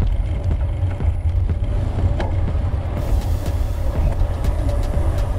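Wind buffeting the microphone on a moving bicycle: a steady low rumble, with small clicks and rattles scattered through it.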